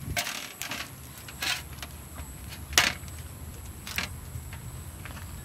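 Charcoal grill under raw marinated pig legs: a few short hisses and crackles, with one sharper pop about three seconds in, over a low steady rumble.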